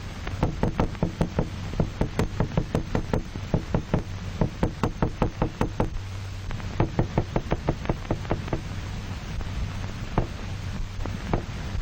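Series of sharp knocks on a hard surface, coming in quick runs of several a second with short pauses, then a few single knocks near the end, used as a sound stimulus. A steady low hum runs underneath.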